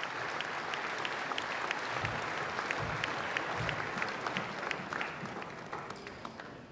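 Crowd applause, a dense patter of hand claps with single claps standing out, fading away near the end.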